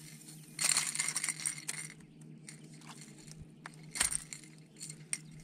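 A freshly caught striped bass thrashing while held up by the jaw, with a flurry of light clinking and rattling about half a second in and a sharper click near four seconds.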